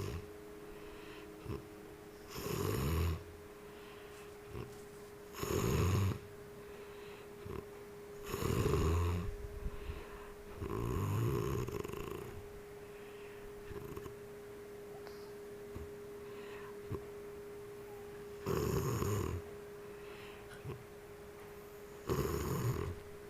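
A sleeping person snoring heavily: six loud snores, each about a second long, coming every few seconds with a longer gap in the middle.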